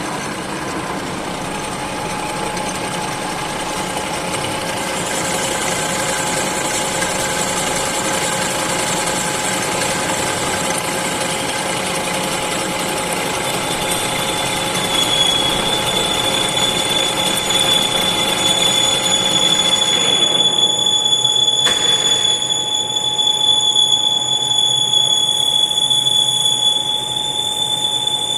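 Lathe running as a cutting tool turns a workpiece held on an offset centre. A high steady whine joins the machine noise about halfway through, and the sound changes about twenty seconds in.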